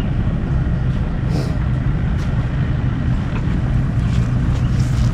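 An engine running steadily with an even low rumble.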